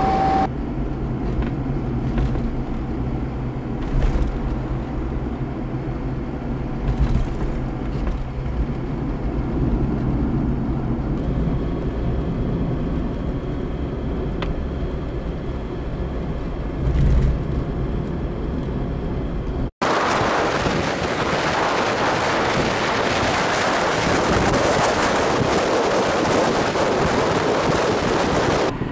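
A car being driven: steady engine hum and road noise heard from inside the cabin, with a few short thumps. After an abrupt cut about two-thirds of the way through, a louder, even rush of wind and tyre noise, with the microphone held outside the car beside its front wheel.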